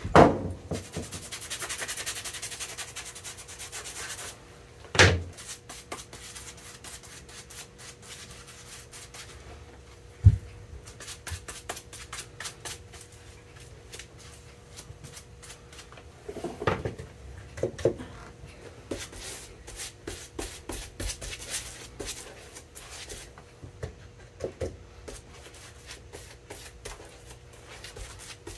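Shoe-repair bench handling sounds: a knock at the start, a few seconds of hissing rustle, then sharp knocks about five and ten seconds in. In the second half comes a long run of quick scratching strokes as a glue brush works over a leather sole, over a faint steady hum.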